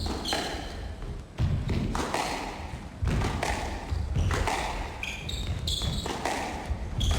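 Squash rally: the ball is struck by rackets and smacks off the court walls in sharp hits about once a second. Short high squeaks from shoes on the court floor come between the hits.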